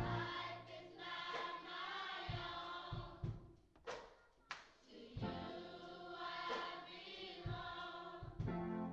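Church choir singing with instrumental accompaniment; the singing drops away briefly a little before the middle, then comes back.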